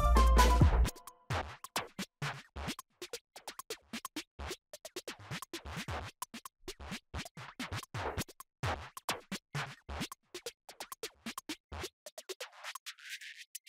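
Background electronic music: a loud beat with heavy bass stops abruptly about a second in, giving way to a sparse stretch of short, chopped scratch-like hits.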